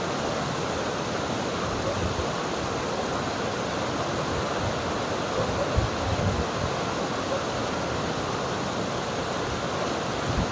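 River water flowing with a steady rushing sound. Brief low thumps come a little over halfway through and again near the end.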